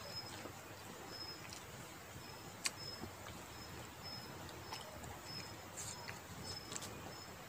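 Quiet sounds of a person eating rice and pork with his hand, with a few sharp mouth clicks from chewing. Behind them a short, high chirp repeats about twice a second.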